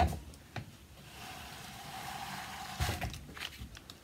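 A soap loaf being pushed along a plastic loaf-cutter tray toward the cutting wire: a knock as the hands land on the cutter, then about two seconds of steady scraping as the block slides, ending in a few knocks as it is set against the wire.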